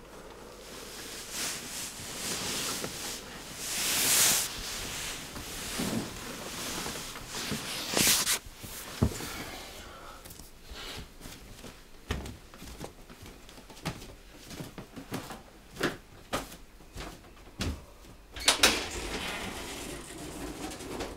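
A person moving about a small room: footsteps and scattered knocks and clicks of things being handled, with a few louder short rushes of noise, the loudest about four seconds in and again near the end.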